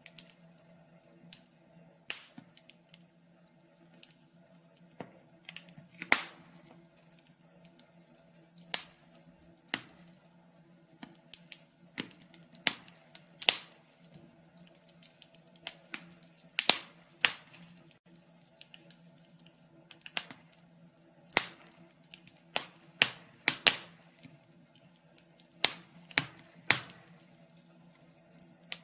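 Wood fire crackling: irregular sharp pops and snaps, some much louder than others, over a faint steady low hum.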